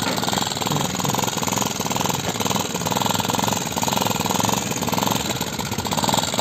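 Small kids' ATV engine running at low speed with a rapid, even pulsing beat, rising and falling slightly as the quad moves along.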